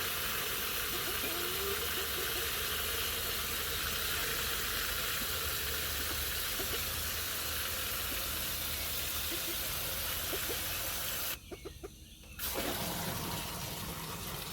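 Water running steadily from a tap into a chick waterer as it fills, an even hiss that cuts off abruptly for about a second near the end and then comes back.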